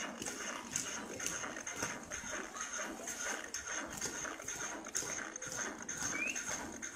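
Boots of a squad of marching soldiers striking a wet parade ground, a run of repeated footfalls.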